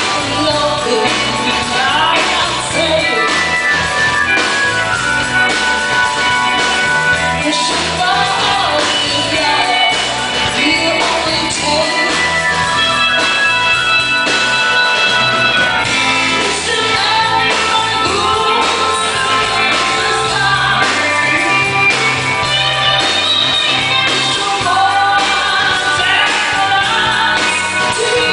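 A live band playing rock-style music with a voice singing and guitar.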